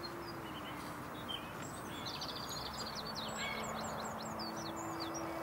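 Outdoor evening ambience: small birds chirping and twittering over a steady background hiss, with a busy run of quick chirps in the middle.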